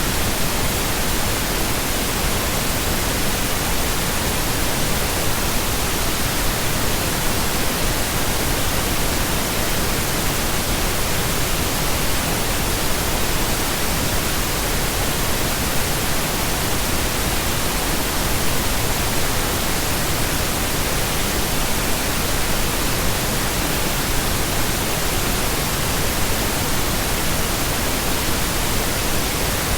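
Steady synthetic pink noise: an even, unbroken hiss spread across the whole range, without change.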